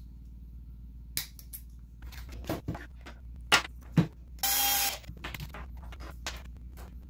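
Clicks and knocks of small metal and plastic RC suspension-link parts being handled and threaded together on a workbench, with two sharper knocks about three and a half and four seconds in. A brief noisy burst lasting about half a second follows just after, the loudest sound.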